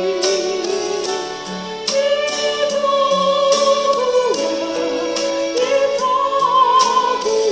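A woman singing a sustained, wavering melody into a microphone over instrumental backing music with a steady beat.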